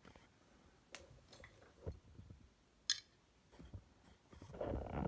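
Small sharp metallic clicks from handling a dimple lock and its tools, three separate clicks spread a second apart, then a rustling clatter of handling near the end.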